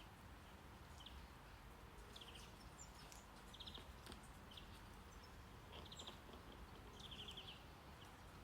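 Faint background nature recording: short, rapidly pulsed chirps recurring every second or two over a low, steady brown-noise hiss.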